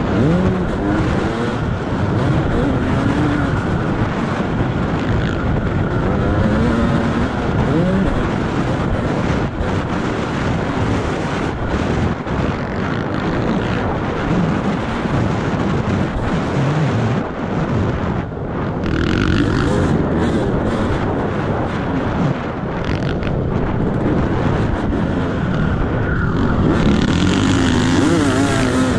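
Dirt bike engine heard onboard, revving up and down with the throttle as it is ridden around a motocross track, its pitch rising and falling again and again over a constant rush of wind noise.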